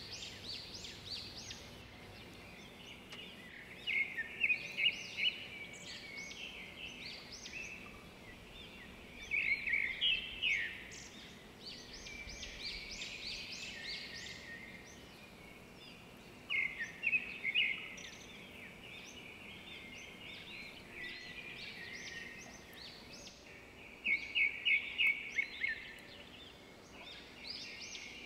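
Small birds chirping in quick bursts of sharp high notes that come every several seconds, over a faint steady hiss.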